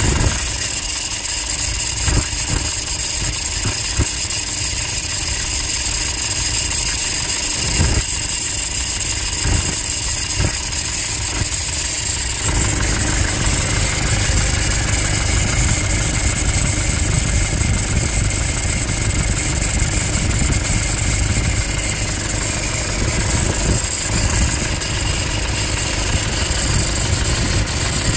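Toyota Hilux 2.5 turbodiesel idling, with a steady scraping hiss (chiado) from the accessory-belt drive. The mechanic takes it for a worn alternator pulley bearing.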